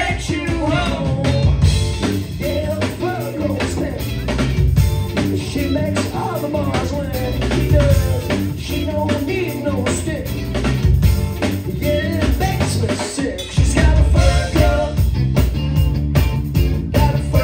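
Funk band playing live: a male lead vocal over electric guitar, electric bass and drum kit. The bass and drums drop out for a moment about thirteen seconds in, then the full band comes back.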